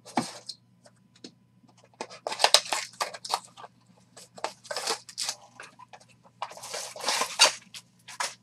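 A utility knife slicing open a cardboard trading-card box, then sealed card-pack wrappers torn open by hand in a series of short, crackling rips.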